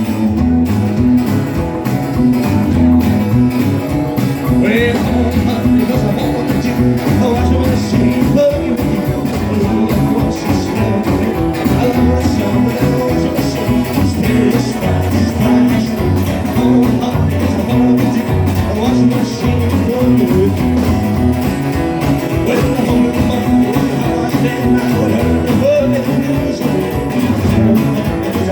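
Live rockabilly band playing a boogie number: a rhythm guitar, bass and drums on a steady driving beat, with a singer.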